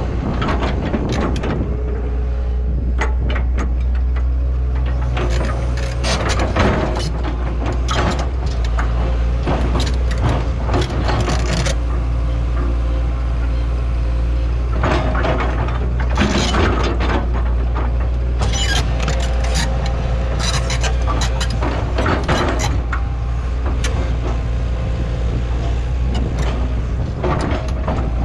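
Excavator's diesel engine running steadily under work, with irregular clanks and scrapes from the machine as it clears snow down to the dirt.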